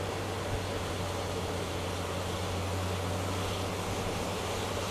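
Suzuki Bandit's inline-four motorcycle engine running steadily at motorway cruising speed, a constant low hum, under a steady rush of wind and wet-road noise on a helmet-mounted microphone.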